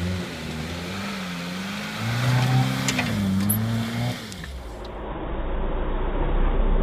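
Lada Niva's engine revving under load as it climbs a steep dirt bank, its pitch rising and falling. A little over four seconds in, the sound changes abruptly to a low rumble with a fainter, steady engine note.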